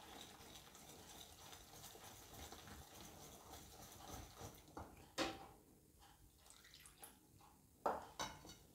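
Wire whisk stirring flour, egg and coconut milk into a batter in a glass bowl: faint wet swishing and mixing, with one sharper knock about five seconds in and two more near the end.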